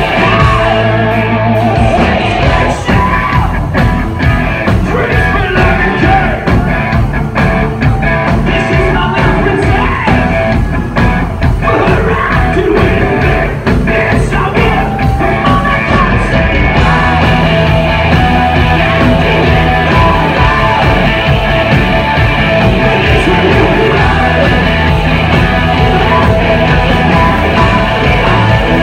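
A hard rock band playing live at full volume: distorted electric guitar, drums and bass, with vocals, heard loud and close from the crowd.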